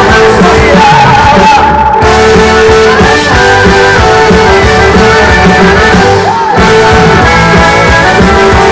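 Live band playing loud rock-flavoured music with singing, heard from among the audience; the sound briefly dulls twice.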